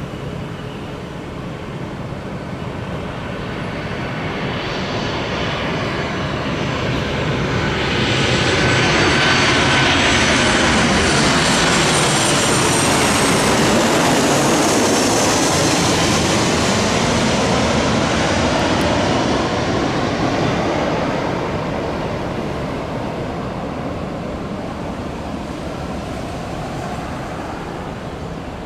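Fixed-wing aircraft passing by. Its engine noise swells over several seconds and holds loud for about ten, with a high whine falling in pitch as it goes past, then slowly dies away.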